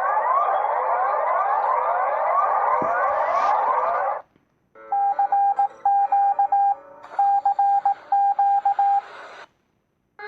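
Mock Emergency Alert System alarm tones. A harsh, fast-sweeping electronic buzz cuts off about four seconds in. After a short gap comes a held electronic chord with four bursts of rapid high beeps, which stops about a second before the end.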